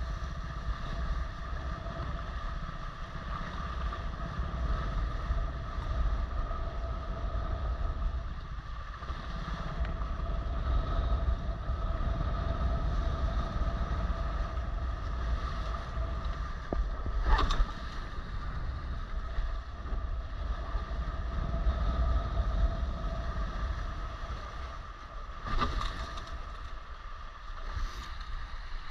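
Wind buffeting the microphone and water washing past the hulls of a Maricat 4.3 catamaran under sail, with a faint steady hum on top. Two sharp knocks come through, one a little past the middle and one about three-quarters of the way through.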